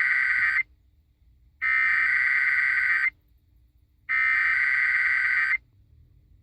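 Emergency Alert System SAME header data bursts, the harsh two-tone digital screech of a Required Weekly Test heard over a car radio. The first burst ends just after the start, then two more follow, each about one and a half seconds long, with a second of silence between them.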